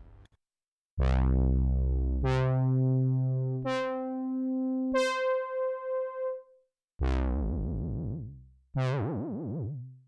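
Dave Smith Instruments Prophet 6 analog synthesizer playing presets with no external effects. Four notes step upward, each opening with a bright filter sweep that closes quickly into a held tone. After a short gap, two more notes sound with a wavering vibrato.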